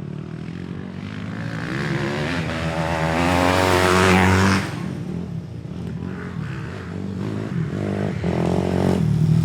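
Motorcycle engine revving twice: the revs climb over about three seconds, drop sharply about halfway through, then climb again near the end.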